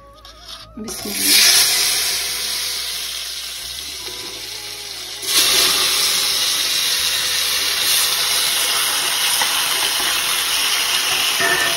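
Hot oil in a steel karahi sizzling as soft cooked pumpkin pieces are slid in from a plate. A loud burst of sizzling about a second in eases off, then jumps up again a little after five seconds as the rest go in, and sizzles on steadily.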